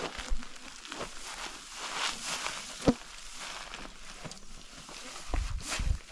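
Dry cut grain stalks rustling and crackling as people handle and tread a heap of them on a plastic tarp, with a sharp click about three seconds in and low thumps near the end.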